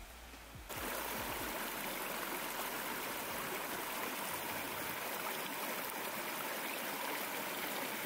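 Small shallow stream running over rocks and pebbles: a steady rushing, babbling hiss that starts about a second in.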